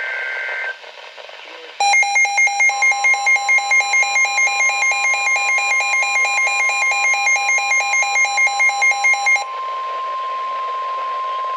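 The tail of a NOAA Weather Radio SAME data burst, then a weather radio receiver's alert alarm beeping rapidly, about four beeps a second, for about seven seconds. From about three seconds in, the steady 1050 Hz NOAA Weather Radio warning alarm tone sounds under the beeps and carries on alone after they stop, announcing a flood alert.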